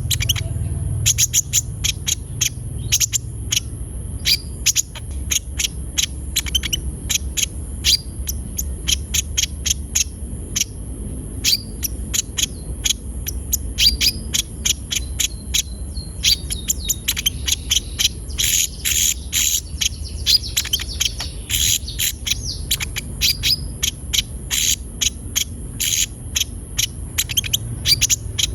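Konin sunbird singing a fast, rapid-fire string of short, sharp high chirps, several a second, growing denser in the middle: the bird in full song, the kind of recording bird-keepers play to coax a young konin into singing.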